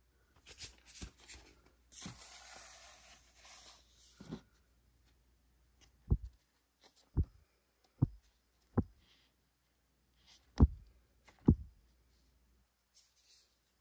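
An LP in its cardboard jacket being slid into a plastic crate of records with a rustling scrape, then the albums in the crate being flipped through by hand, jackets tipping forward against the stack with six thumps in the second half.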